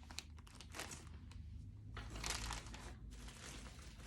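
Faint crinkling and rustling of packaging as skeins of yarn are handled and taken out of the box, in a few short rustles, the loudest a little after two seconds in.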